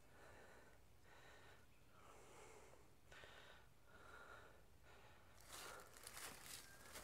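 Near silence with faint, soft rustling, then from about five seconds in a few crackles of dry leaf litter underfoot.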